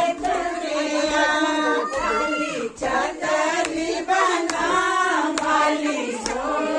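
A group of women singing a Himachali (Pahari) wedding folk song together, with sharp hand claps keeping time about once a second.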